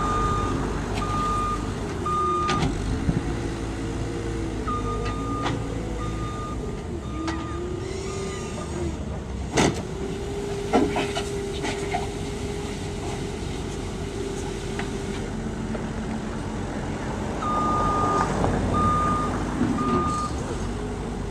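CAT 262C skid steer loader working, its diesel engine rising and falling in pitch as it drives and moves its bucket, with its reversing alarm beeping in three spells. Two sharp knocks come near the middle, about a second apart.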